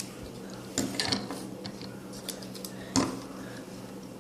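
Plastic Transformers robot figures being handled, giving a few light clicks and knocks, a quick cluster about a second in and a louder knock about three seconds in.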